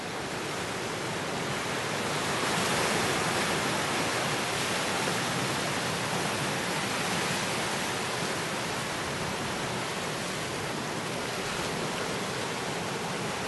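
Ocean surf: a steady rush of breaking waves and whitewater, growing louder about two seconds in.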